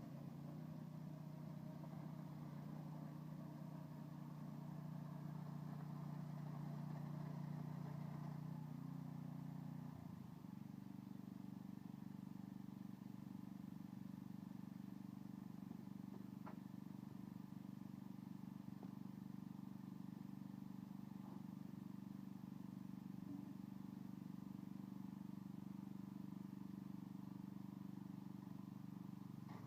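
Small portable generator engine running steadily, its hum shifting to a different pitch about ten seconds in.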